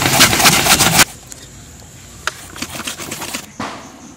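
Cassava root rasped on a metal box grater, rapid scraping strokes about five a second, stopping abruptly about a second in. After that, only faint rustling and scattered clicks as hands handle the grated cassava.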